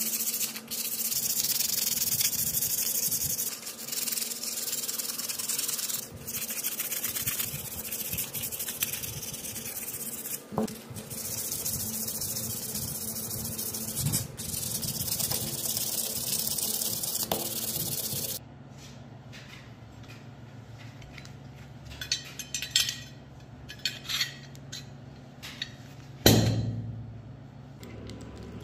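Rust being scrubbed by hand off a rusty Beretta pistol frame: a steady back-and-forth rasping that stops abruptly about two-thirds of the way through. After it, a few light clicks of small metal parts, and one louder knock near the end.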